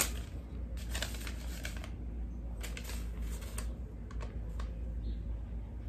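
Long paper till receipt being unfolded and handled: irregular light rustles and crinkly clicks.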